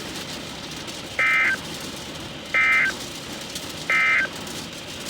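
Emergency Alert System end-of-message data bursts: three short, identical buzzing bursts of digital tones, about a second and a half apart, marking the close of the weather warning.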